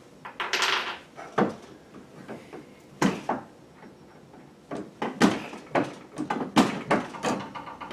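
Sharp metal clicks and knocks from hands working at the head of a single-stage reloading press, with a short scraping sound about half a second in.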